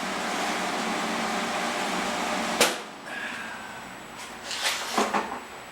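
Steady whir of a running fan. About two and a half seconds in, a sharp click, after which the whir is much quieter. Short clatters follow near the end.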